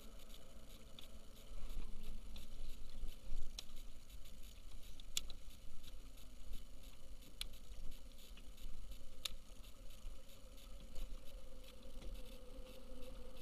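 Water lapping against a kayak hull, with wind rumbling on the camera microphone. Four sharp ticks are spaced through it.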